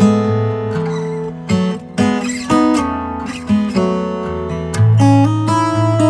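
Acoustic guitar music, strummed chords mixed with plucked notes, the chords changing every second or so.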